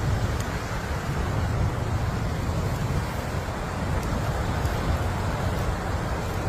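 Wind buffeting a phone's microphone outdoors: a steady, uneven low rumble with a rushing hiss above it.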